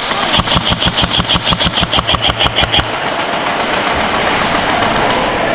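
Airsoft gun firing a long full-auto burst, a fast even string of shots at about eight or nine a second, stopping about three seconds in.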